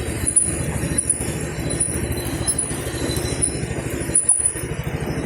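A road vehicle's engine running under way in rapid, even low pulses, with faint high metallic clinks and jingles over it.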